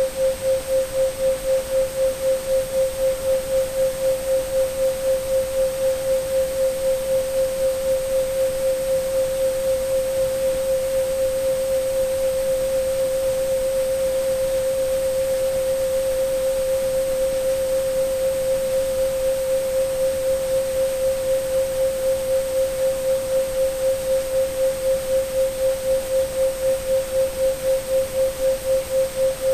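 A synthesized 528 Hz sine tone pulsing in volume over a soft, even hiss of pink and white noise. The pulsing grows shallow, almost a steady tone, in the middle, then deepens again toward the end.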